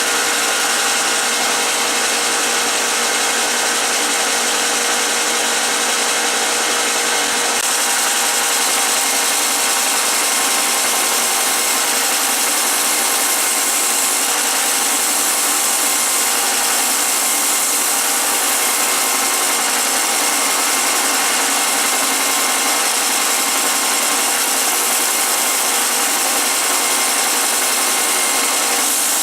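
Belt sander with a coarse 50-grit belt running steadily, a red alder cane handle being ground against it to round and contour it; a constant motor hum under the grinding.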